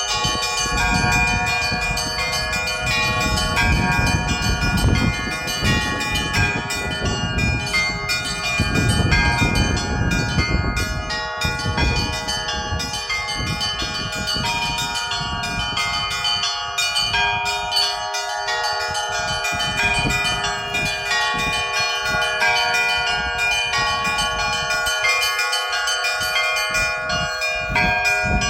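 Church bells rung as a set, several bells of different pitches sounding together in a continuous, busy peal, with the higher bells ringing over the lower ones. A low rumble swells and fades about four and nine seconds in.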